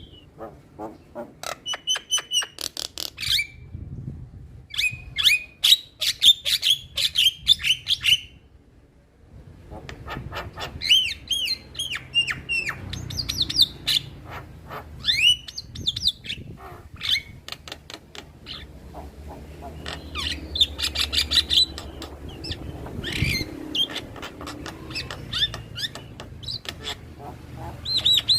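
Male Javan myna singing: bursts of rapid clicking chatter mixed with whistled and harsh squawky notes, with a short break about nine seconds in.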